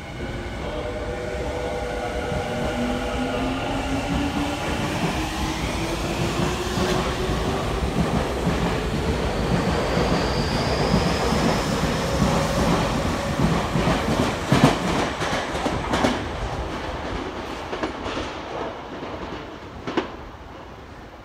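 Tokyu 5000 series eight-car electric train pulling away: its inverter-driven traction motors whine in several tones that rise in pitch as it accelerates, then wheel clatter over rail joints and points builds, with a few sharp clacks, and fades as the train moves off.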